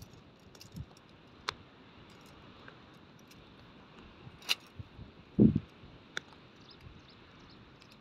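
Folding tent pole sections clicking as they are unfolded and snapped together: a few separate sharp clicks, with one louder dull thump about five seconds in.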